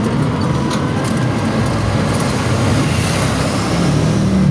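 Electric golf cart travelling along a road: a steady low rumble of tyres and drive, growing a little louder near the end.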